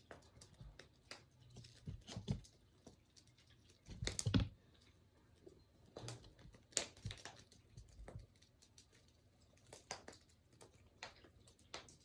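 Irregular light clicks and taps of a cat playing with an electronic flying-bird toy, its paws and the toys knocking about, with a heavier scuffle about four seconds in.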